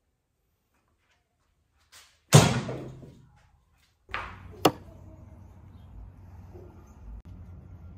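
A loud slam-like knock that rings out for about a second, followed a couple of seconds later by a softer second hit and a sharp click, then a steady low background noise.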